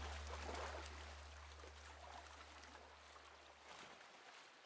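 Tail of the closing logo's music sting fading out: a low held bass note dying away under a faint, watery rushing noise.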